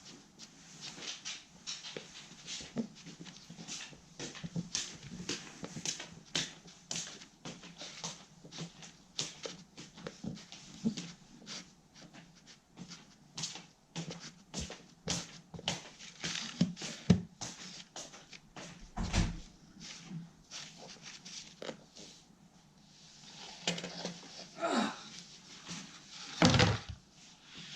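Spatula scraping and stirring two-part epoxy on a hard flat board: fast, irregular scrapes and clicks, with a heavier knock about two-thirds through and another near the end.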